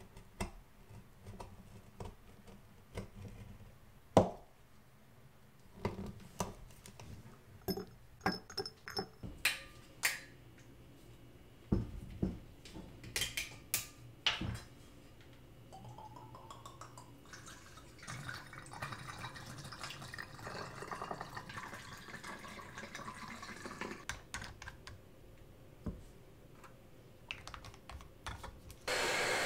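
Scattered knife taps and clicks of small glass bottles and caps on a wooden counter, then vodka poured through a funnel into small glass bottles, splashing with a pitch that rises as a bottle fills. A hair dryer switches on at the very end.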